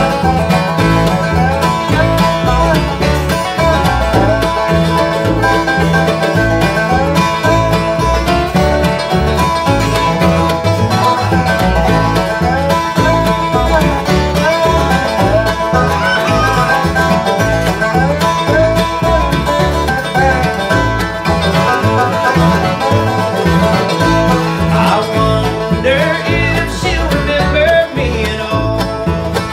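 Live bluegrass band playing with a steady beat: banjo rolls, mandolin, acoustic guitar, resonator guitar played lap-style and upright bass.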